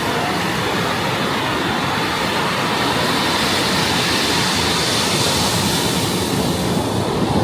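Ocean surf washing ashore, a steady rushing noise.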